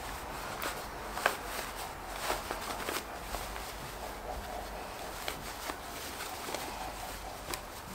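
Cotton fabric rustling and crumpling by hand as a lined zippered pouch is turned right side out, with scattered light clicks and taps.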